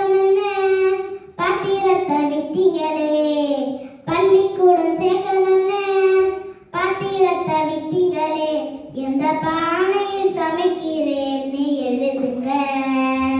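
A young girl singing a Tamil folk song solo and unaccompanied, holding long notes in phrases of two to three seconds with short breaks for breath between them.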